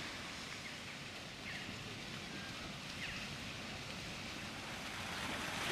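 Faint, steady outdoor hiss that grows slightly louder near the end, with two faint short chirps about a second and a half and three seconds in.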